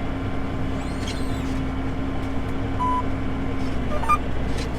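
Steady engine drone heard inside the cab of a Challenger MT965C tractor on the move, with a short single electronic beep about three seconds in.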